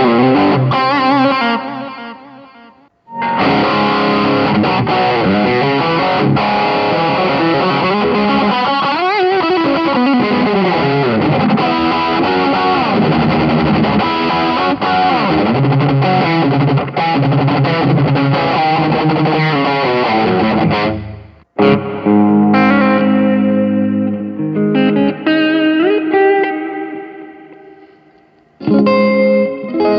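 Electric guitar played through an M-VAVE Tank-G multi-effects pedal with a distorted tone: lead lines with string bends and vibrato in three phrases. The playing fades out about 3 seconds in, stops abruptly about 21 seconds in, and fades again before picking up near the end.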